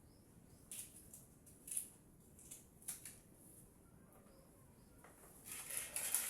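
Light kitchen handling noises during vegetable prep: a few separate sharp clicks and taps in the first half, then a longer rustle near the end.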